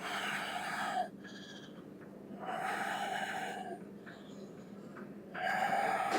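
A person breathing hard with effort: three forceful breaths, each about a second long and about two and a half seconds apart.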